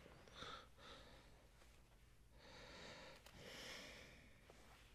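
Near silence with a few faint, soft breaths.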